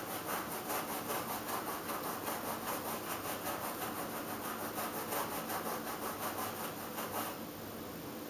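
Stiff hand brush scrubbing a carpet in quick, even back-and-forth strokes, about four a second, stopping about seven seconds in.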